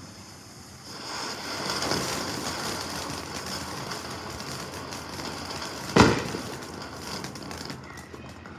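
Ground fountain firework hissing steadily as it sprays sparks, starting about a second in and fading near the end, with one sharp bang about six seconds in.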